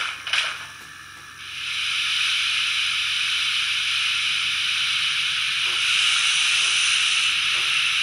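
Sound decoder of a model steam locomotive (ESU LokSound V5) playing a loud, steady steam hiss from its onboard speaker, setting in about a second and a half in, as the engine starts off. From about six seconds in, slow exhaust chuffs come about once a second as it begins to move.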